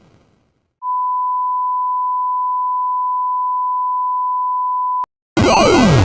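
A steady single-pitch electronic beep, like a test tone, starting about a second in and holding for about four seconds before cutting off with a click. Just before the end a loud burst of clashing alarm sound effects with falling pitch sweeps starts.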